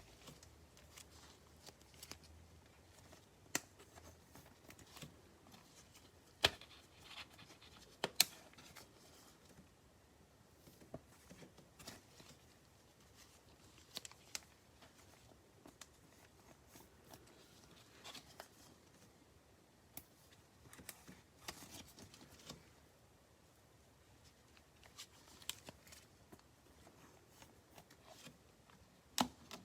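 Trading cards and plastic top loaders being handled and stacked on a table: faint rustling with scattered light clicks and taps, a few sharper taps about six and eight seconds in and again near the end.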